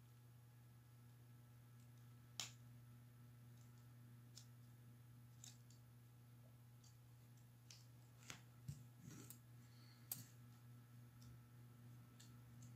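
Faint, scattered light clicks and taps of small plastic and metal laptop parts being handled: a cooling fan assembly worked with a small screwdriver and set down on the motherboard. The sharpest click comes about two seconds in, with a cluster of them later, over a low steady hum.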